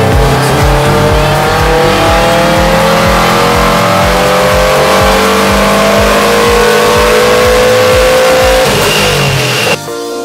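2013 Subaru WRX's turbocharged 2.5-litre flat-four engine making a wide-open-throttle pull on a chassis dynamometer, its pitch rising steadily for about nine seconds. Near the end it cuts off abruptly and gives way to music.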